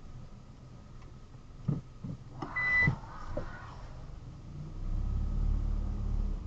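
Car moving slowly through an underground car park: a few light knocks and a short high electronic beep about two and a half seconds in, then a low engine rumble that swells for the last second and a half.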